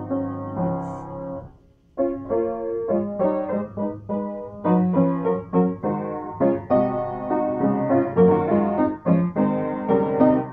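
F. Geissler upright piano played solo: a chord dies away, a brief pause, then a steady flow of notes resumes about two seconds in.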